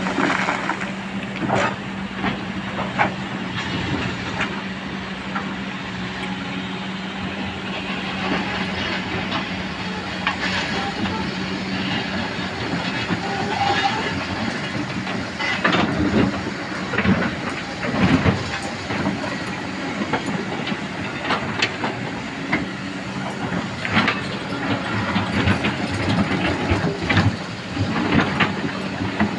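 Excavator's diesel engine running with a steady hum, under irregular clanks and knocks from the machine at work, which come thickest from about halfway through.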